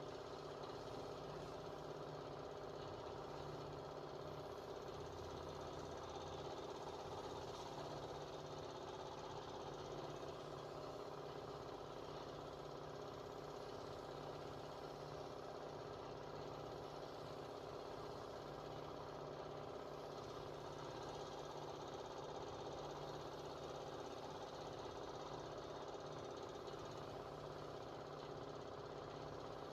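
Faint, steady hum of a running motor that holds one unchanging pitch.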